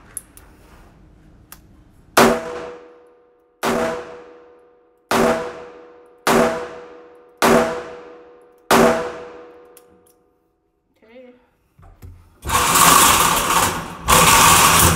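Six shots from a Taurus 856 Ultra-Lite .38 Special revolver, one about every second and a quarter, each ringing off in the indoor range, emptying its six-round cylinder. About two and a half seconds after the last shot comes a loud rustling noise, in two stretches, that runs to the end.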